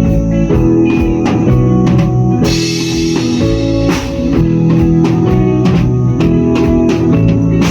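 A band playing at a sound check: drum kit keeping a steady beat under electric guitar and bass, with a cymbal crash about two and a half seconds in.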